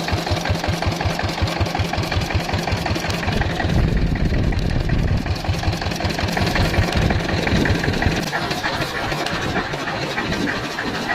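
Small klotok boat's engine running with a regular low thudding beat. About four seconds in, the beat smooths into a steadier drone for a couple of seconds, then returns.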